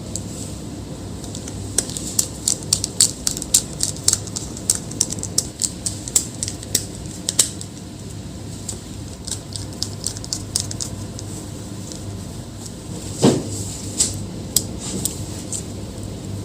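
Quick runs of small clicks and taps from handling small laptop parts and tools during a battery swap, with one louder knock about three-quarters of the way through, over a steady low hum.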